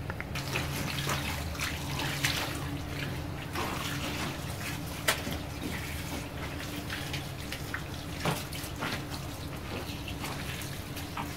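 Water pouring from a hose pipe onto a soaked fleece blanket on a concrete floor, with irregular splashes and slaps as the blanket is trodden underfoot. A steady low hum runs underneath.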